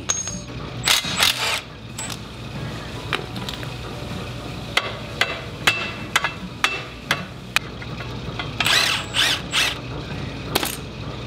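Short bursts from a hand-held cordless power tool running bolts on a car's rear subframe, a few about a second in and more near the end, with sharp metal clinks of tools and parts in between.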